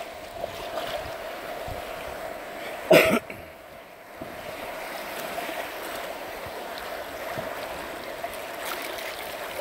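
River water rushing steadily around a floating inner tube, with one short, loud noise about three seconds in.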